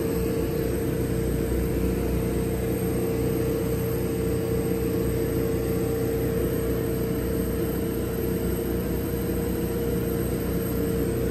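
Gweike Cloud CO2 laser cutter humming steadily while its gantry moves the head around the piece's outline in a framing pass, with a steady high-pitched whine over a low drone.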